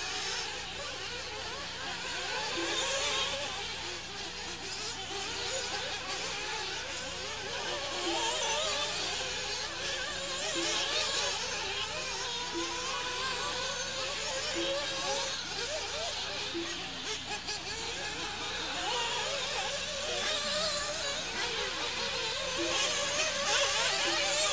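Several nitro RC buggy engines, small glow-fuel two-strokes, buzzing at high revs, each rising and falling in pitch as the cars race around the track.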